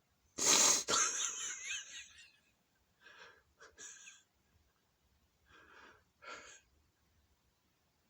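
A person sneezing loudly once, about half a second in, the burst trailing off over about a second and a half, followed by several short, fainter breaths.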